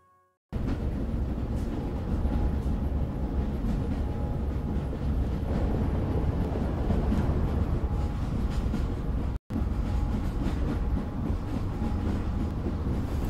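A steady, loud rumbling noise, heaviest in the bass. It starts after a short silence at the beginning and cuts out for an instant about nine and a half seconds in.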